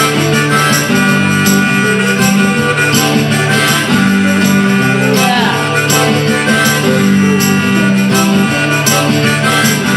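Live acoustic band playing: several strummed acoustic guitars with a keyboard, in a steady rhythm.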